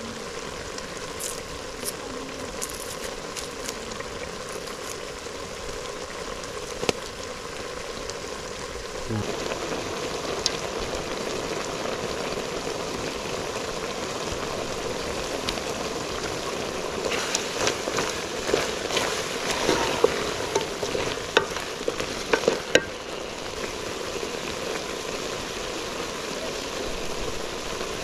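A pot of meat and okra stew sizzling on the fire, the sizzle growing louder about nine seconds in. A cluster of sharp clicks past the middle, as a spoon stirs and knocks against the metal pot.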